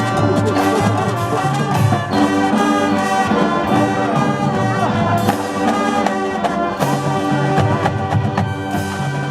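High school marching band playing: brass section carrying the melody over drums and percussion.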